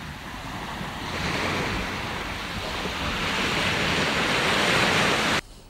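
Surf breaking and washing onto a sandy beach. The rush of the waves swells about a second in and builds to its loudest near the end, then cuts off abruptly.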